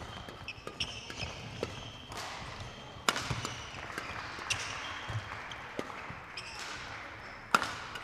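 Badminton rally: rackets striking the shuttlecock in quick exchanges, with court shoes squeaking on the floor between shots. The hardest hits come about three seconds in and near the end.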